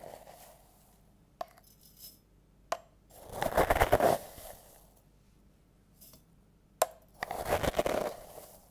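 Dry loose-leaf tea rustling and crunching in two pours or scoops of about a second each, with a few sharp light clicks between them.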